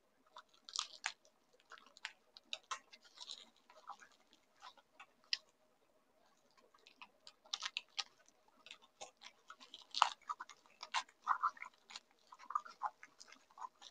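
Bubble-wrap packaging being cut with scissors and pulled apart by hand: irregular crackling and crinkling of plastic with sharp snips, busiest in the second half.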